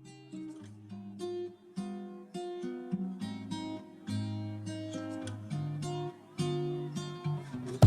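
Background music: acoustic guitar playing a sequence of plucked notes.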